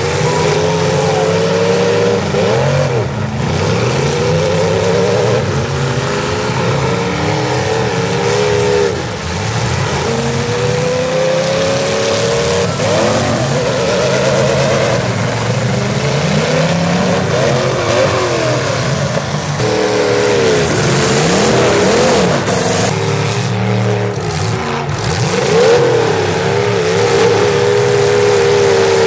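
Several demolition derby cars' engines revving hard at once, their pitch swinging up and down constantly as the cars accelerate and push against each other.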